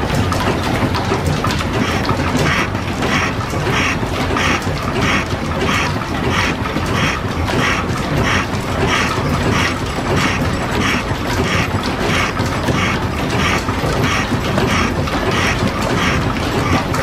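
Belt-driven metal shaper cutting, its ram stroking back and forth with a rhythmic squawk a little over twice a second, over the steady din of the flat-belt line-shaft drive.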